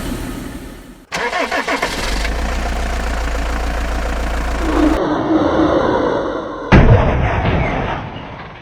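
Vehicle engine sounds in several abruptly spliced pieces: an engine starting about a second in and running steadily, then after a cut a sudden loud engine burst near the end that fades away.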